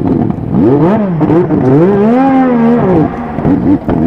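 McLaren Honda MP4/4 Formula One car's 1.5-litre turbocharged Honda V6 revved in a series of throttle blips, the pitch rising and falling several times, with the biggest rev held for about half a second in the middle.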